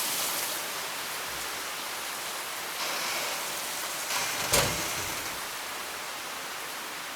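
Heavy rain falling as a steady hiss, with one sharp knock about four and a half seconds in.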